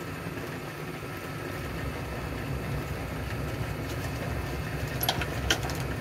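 A steady low mechanical hum, with a few light clicks about five seconds in.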